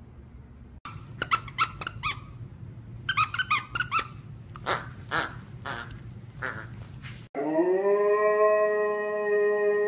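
A husky chewing a squeaky plush toy, making it squeak over and over in short clusters. About seven seconds in, a husky howls: one long call that rises at the start and then holds steady.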